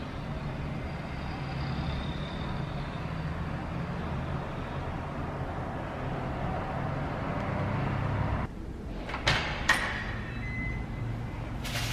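A road vehicle running, a steady low rumble. About three quarters of the way through it drops, followed by two sharp clicks and a brief high beep.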